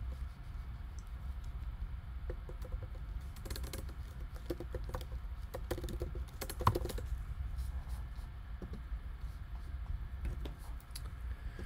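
Typing on a computer keyboard: a run of irregular key clicks.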